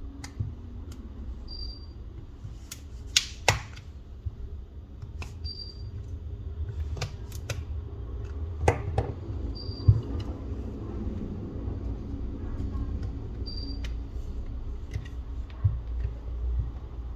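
Scattered small clicks and taps of tools and parts being handled during a smartphone disassembly, a few of them sharper knocks. A short high beep repeats about every four seconds over a low steady hum.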